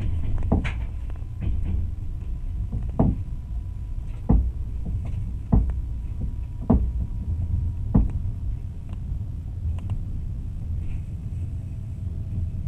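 A passenger train running along an electrified line, heard from inside the carriage: a steady low rumble of wheels on rails, with a sharp clack of the wheels over a rail joint about every second and a quarter through the first eight seconds.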